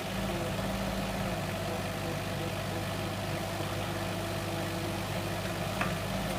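Heavy construction machine's engine running steadily at an even, unchanging speed, with a faint click shortly before the end.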